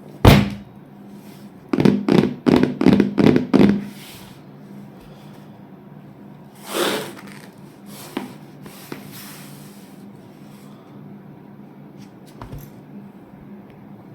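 Packaging being handled: a sharp knock, then a quick run of about six scraping strokes, then a single rustle and a few faint clicks, over a steady low hum.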